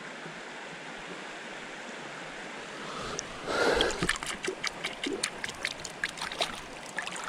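Mountain trout stream flowing in a steady hiss of running water. About three and a half seconds in comes a louder splash, followed by a run of irregular sharp ticks and small splashes.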